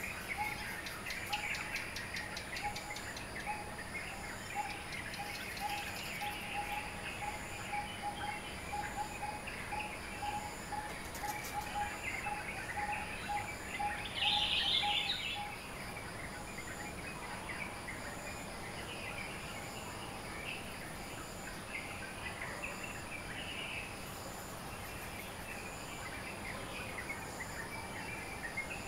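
Dawn chorus of many birds chirping and twittering together. One bird repeats a low note a few times a second through the first half, and a louder burst of chirping comes about halfway through.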